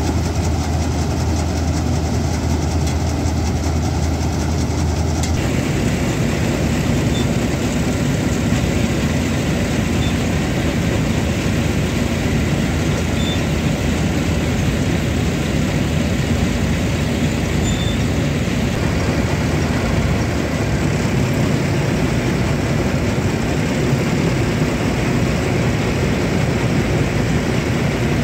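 A John Deere combine harvester running at working speed while it unloads paddy grain through its unloading auger: a loud, steady machinery drone. About five seconds in, the strong low hum gives way to a brighter, denser rush of noise.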